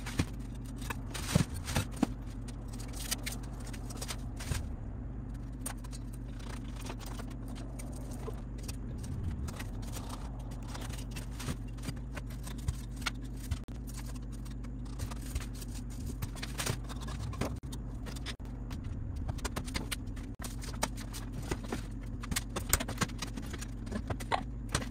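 Scattered scrapes, taps and clicks of a hand tool working at a log wall, over a steady low hum.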